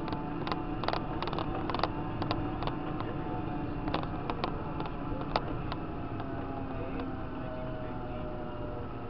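Tractor engine running steadily while driving on the road, with scattered sharp ticks and knocks through the first half.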